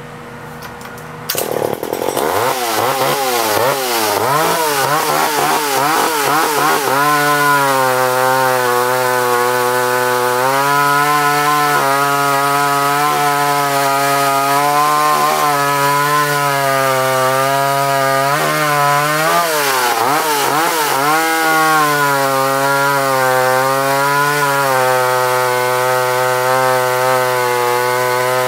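McCulloch SP81 two-stroke chainsaw, about 5 cubic inches, suddenly opened up about a second in and revved up and down repeatedly. Then it runs at full throttle cutting through a log, the pitch sagging slightly under load. Once, about two-thirds through, the pitch drops off and climbs back.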